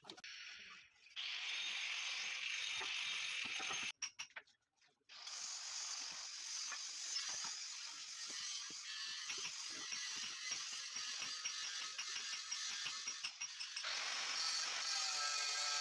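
Handheld electric stone cutter cutting a red granite slab, running steadily for about three seconds and cutting off sharply about four seconds in. After a short pause comes a long stretch of dense clicking and scraping as cut granite pieces are handled.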